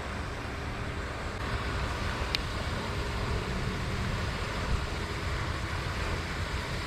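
Steady wind rumble and hiss on the microphone, with one faint click about two seconds in.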